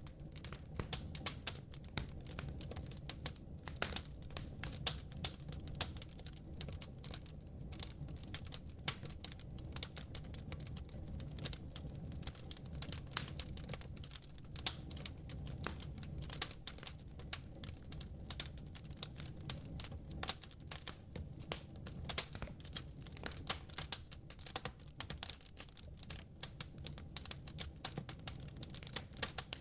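Wood fire crackling: a dense, irregular stream of small pops and snaps over a steady low rumble.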